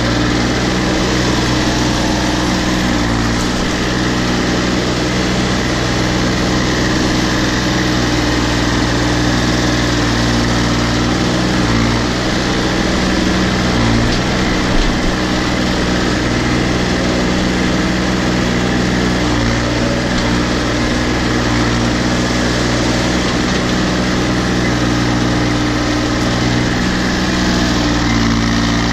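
Case 235 compact tractor's engine running at a steady, unchanging speed while the tractor drives along.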